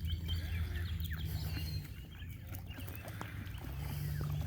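Geese and their goslings calling: scattered short peeps and calls over a steady low hum.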